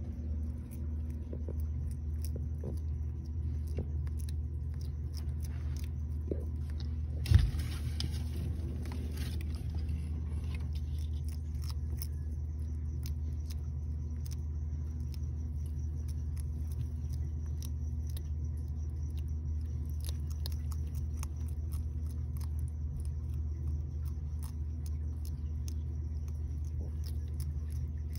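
Faint scattered clicks of baby frilled dragons biting and crunching live superworms, over a steady low hum. A single sharp knock about seven seconds in.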